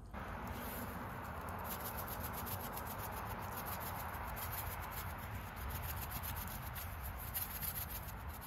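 Vegetables and chicken broth sizzling in a pan over a campfire: a steady hiss with fine crackling pops throughout.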